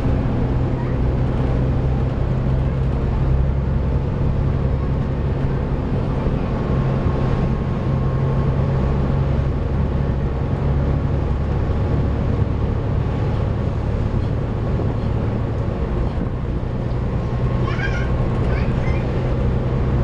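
Volvo B7TL double-decker bus under way, heard from inside the upper deck: the engine and driveline run with a steady low hum and the vacuum-cleaner-like 'hoover' whine that this bus is known for.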